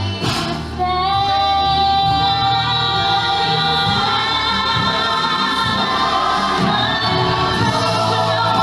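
Live stage-musical music: voices holding long sung notes over an orchestral backing track.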